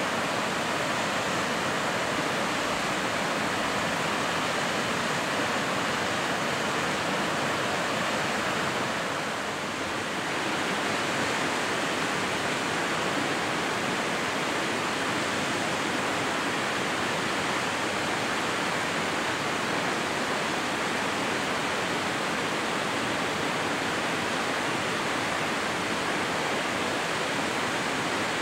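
Steady rush of water in a mountain river, with a slight dip in level about nine seconds in.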